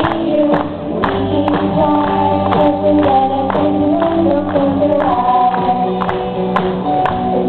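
Two girls singing a pop song together over musical accompaniment with a steady beat of about two strokes a second.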